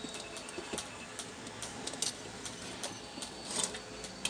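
Screwdriver turning a small screw in a rice cooker's plastic housing: a run of light, irregular clicks and ticks of the metal tip and screw against metal and plastic.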